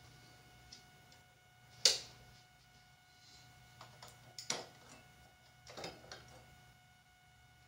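Light switches clicking as fluorescent tube fittings are switched off one after another: a sharp click about two seconds in, another about halfway through, and a double click near six seconds. Under the clicks runs a low steady hum.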